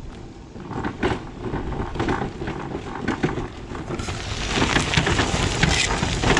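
Permobil F3 power wheelchair driven at full speed over gravel: its solid rubber tyres crunch over the stones while the suspension knocks and rattles over the bumps, even though the chair is nearly new. The noise grows louder from about four seconds in.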